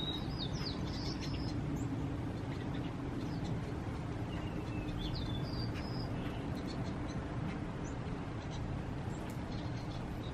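Birds chirping: a few short, quick-sliding whistled notes in the first second and a half and again around the middle, over a steady low background rumble.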